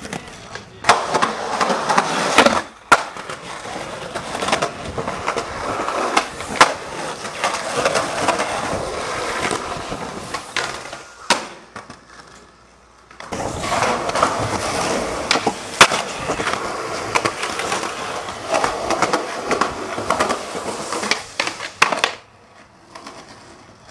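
Skateboard wheels rolling on concrete in several separate runs, broken by sharp clacks of the board popping and landing tricks. A short lull comes about halfway through.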